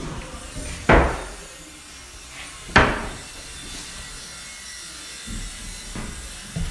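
Two sharp wooden knocks about two seconds apart, from fitted wardrobe doors being handled, over a steady low hiss.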